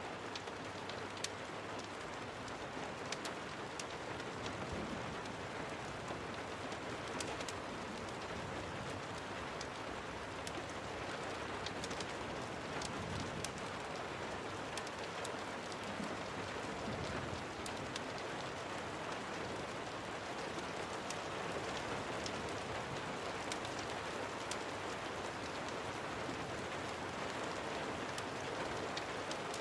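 Steady rain falling, an even hiss with many scattered sharp ticks through it.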